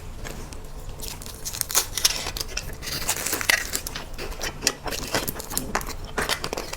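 Plastic food wrapping crinkling and crackling as it is handled and torn, a dense run of small rapid crackles.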